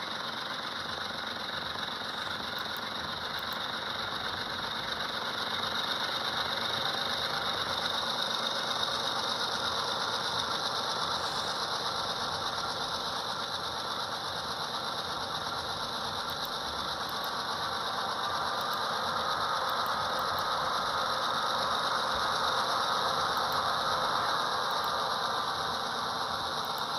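Recorded diesel prime-mover sound from an HO-scale model locomotive's sound decoder, played through a small onboard speaker and running at a high throttle notch. It does a lot of puttering.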